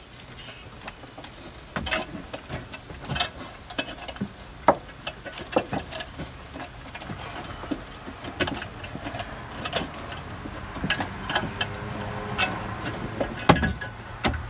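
Irregular clicks and knocks of a finned metal car-audio amplifier and its mounting cradle against dashboard plastic and wiring as it is worked into place behind the glove box.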